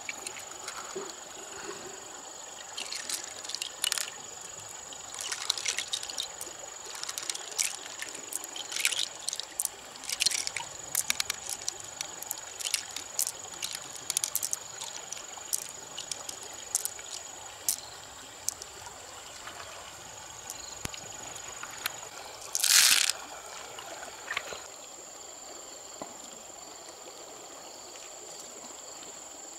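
Shallow creek water trickling steadily over stones, with a faint steady high whine. Many small sharp clicks come through the first half as pearls and mussel shell are handled, and one brief louder rush of noise comes about 23 seconds in.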